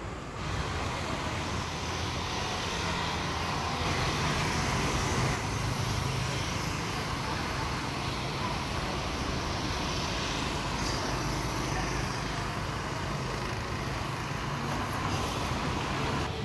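Steady street traffic noise: a continuous rumble and hiss of road vehicles.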